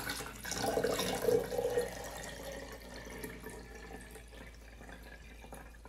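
Water being poured from a glass mason jar into another glass jar, a splashing trickle. It is loudest in the first two seconds and then trails off.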